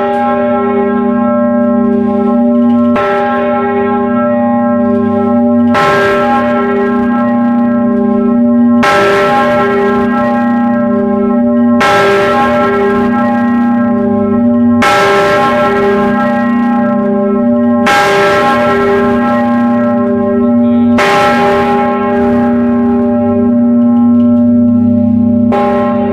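The 4,350 kg great bell of Katarina Church swinging in full peal, heard from beneath it in the belfry. Its clapper strikes about every three seconds, and each stroke sets off a fresh clang over a long, deep ringing hum that carries on between strokes.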